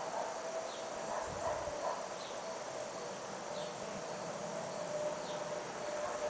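Summer field ambience: a steady insect drone with a faint high pulsing chirr, and a few short falling bird chirps scattered through it.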